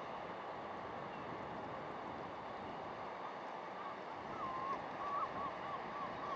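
Steady coastal wind and sea noise. From about two-thirds of the way in, a short run of thin, wavering whistled notes, about three a second.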